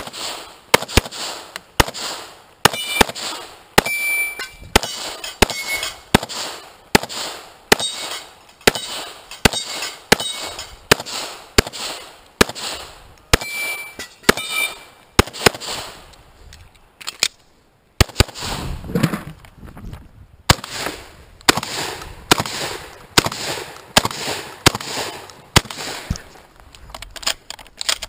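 Semi-automatic pistol fired in a long string of shots, a little more than one a second, several followed by the short ping of a steel target being hit. The shooting breaks off briefly about 18 seconds in, then carries on with more gunshots.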